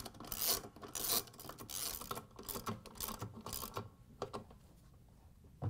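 Socket ratchet clicking in quick back-and-forth strokes as it drives in the transmission mounting bolts of a Whirlpool washer, stopping after about four seconds. A single knock follows near the end.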